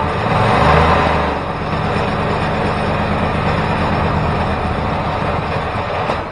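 Home-built 424cc inline twin made of two coupled Predator 212 single-cylinder four-stroke engines, running on a stand with its throttle worked by hand and its carburetor needle lowered to bring down a high idle. It runs louder for about a second near the start, settles into steady running, then cuts off just before the end.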